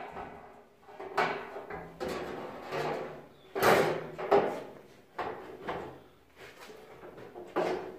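Knocking, rattling and scraping of a large metal-framed UPS cabinet panel being lifted and fitted by hand: a run of irregular knocks, the loudest a little over three and a half seconds in.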